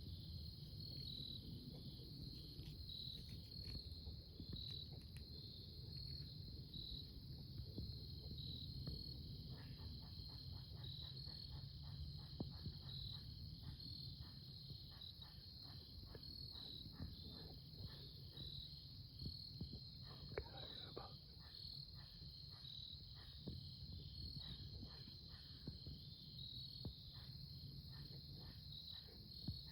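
Crickets chirping in a steady high pulsing drone over a low rumble. From about ten seconds in, faint scattered ticks and rustles sound on top, thickest about two-thirds of the way through.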